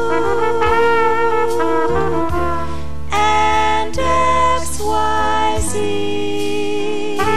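Music: a brass instrument plays a slow melody of long held notes over a steady bass accompaniment, with singing voices.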